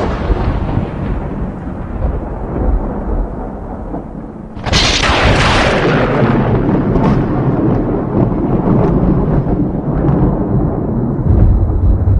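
Thunder: a low rumble fading away at first, then a sharp thunderclap about four and a half seconds in, followed by a long deep rumble with scattered crackles and a heavier low swell near the end.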